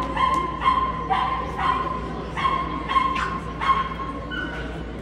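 A dog whining in a string of high, held cries, one after another with short breaks.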